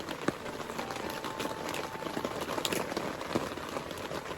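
Wood campfire crackling and hissing, with scattered small pops.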